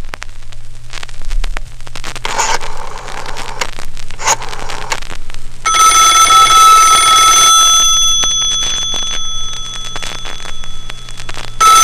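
Telephone bell ringing on a 1960s 45 rpm record as it starts to play: stylus crackle and a low hum at first, then one trilling ring of about two seconds some six seconds in, and a second ring beginning near the end.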